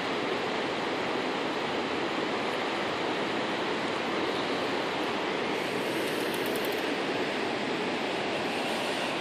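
Fast salmon river rushing past over rapids: a steady, even rush of flowing water.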